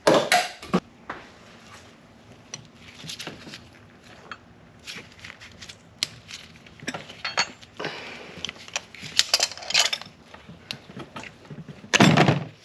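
Hand tools and engine parts being handled: a series of sharp clicks, clinks and scraping of metal and hard plastic. There is a loud clatter at the start and another near the end.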